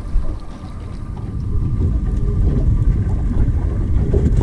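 Wind buffeting the microphone: a low, uneven rumble that grows louder about a second and a half in.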